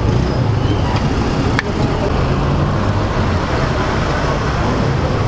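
Street traffic noise: a steady low engine rumble of passing and idling vehicles, with one short click about one and a half seconds in.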